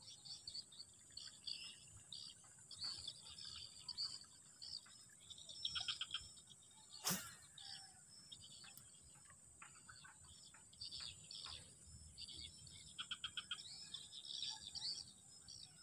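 Outdoor chorus of birds and insects chirping and trilling, over a steady high insect buzz. About seven seconds in, one quick swish as a fishing rod is cast.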